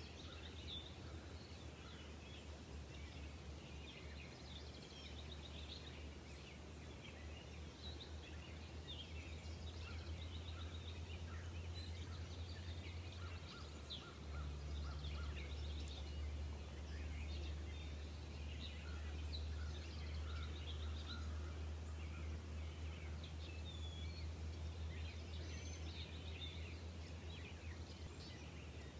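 Outdoor ambience of many small birds chirping and calling in short, high notes scattered throughout, over a steady low rumble that gets louder about halfway through.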